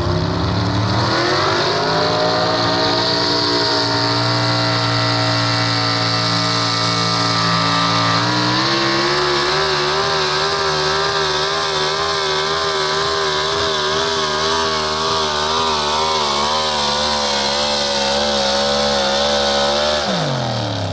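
Engine of a Pro Stock 4x4 pulling truck at full throttle, pulling a weight sled. The revs climb about a second in as it launches and then hold high. In the second half the pitch wavers up and down as the truck bounces down the track, and near the end the engine drops off sharply as the pull ends.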